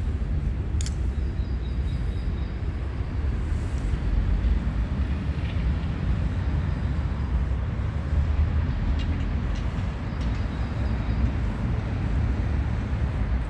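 A steady low rumble throughout, with faint, high, repeated bird chirps over it a few times.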